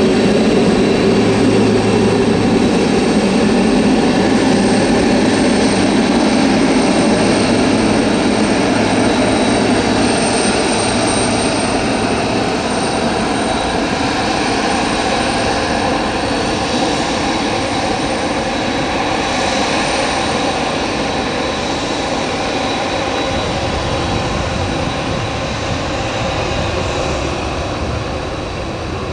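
Boeing 747-400F's four jet engines running steadily at taxi power, a loud whine with several steady high tones. A deeper rumble grows about three-quarters of the way through as the overall level eases slightly.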